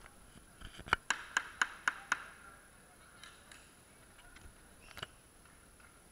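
A run of about six sharp claps in quick succession, around four a second, starting about a second in, with a few fainter claps later and a single one near the end, echoing in a large hall.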